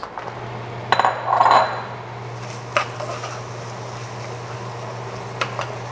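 Kitchen clatter: a few clinks and knocks of utensils against cookware, about a second in, near three seconds and again near the end, over a steady low hum.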